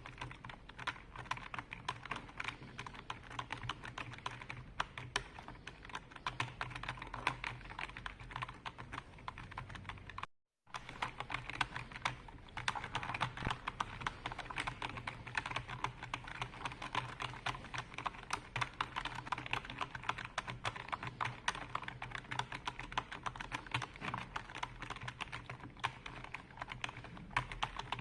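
Typing on a computer keyboard: a dense, irregular stream of keystroke clicks, which cuts out completely for a moment about ten seconds in and then resumes.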